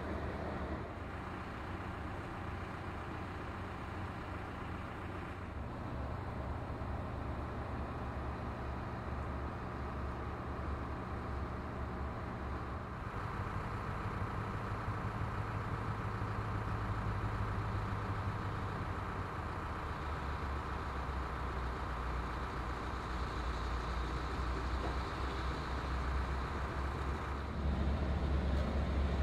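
Heavy diesel engines running steadily: a low, even engine hum with no sudden events. The sound shifts about halfway through and again near the end to a somewhat louder, deeper running.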